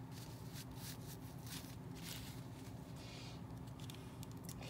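Faint rustling and soft handling noises as a jumpsuit is worked off a plastic fashion doll, with a low steady hum underneath.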